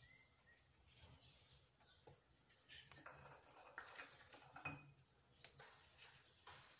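Faint handling sounds of semolina dough being pressed into a small fluted mould and turned out: soft rustles with scattered light clicks and taps, busiest in the second half and sharpest about five and a half seconds in.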